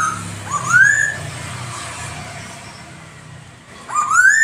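Black-throated laughingthrush (poksay Hongkong) singing loud, rising whistled notes: one at the start, another just under a second in, and a longer one near the end, over a low steady background rumble.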